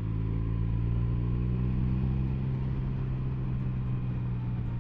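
Triumph Sprint 1050's three-cylinder engine, its exhaust baffle removed, running at a steady pace while the bike is ridden along.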